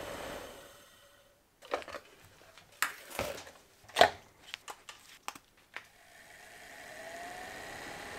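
A Mercedes W212 E-Class radial cabin blower motor, clamped in a vise, spinning down after its power is cut. Then a run of clicks and knocks as the fan unit is handled and a new one is set in the vise, the loudest about halfway through. The new blower then spins up with a rising whine and settles into a steady rush of air.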